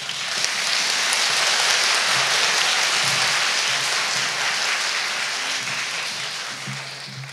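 Audience applauding, swelling in the first second and slowly dying away toward the end.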